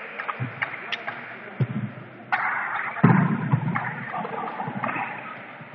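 Echoing sports-hall ambience: indistinct voices of volleyball players and spectators, with a few dull thumps, the loudest burst about halfway through.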